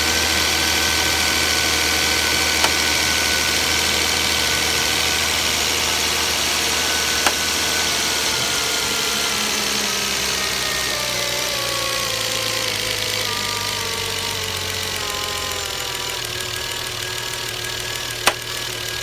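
Volvo S60 T6 3.0-litre turbocharged straight-six idling on a cold start, its idle note gradually falling, with three sharp clicks like something knocking on hard plastic from the top left of the engine: about three seconds in, about seven seconds in, and the loudest near the end. The clicks come only while the engine is cold and go away once it warms up; the dealer has not found the cause.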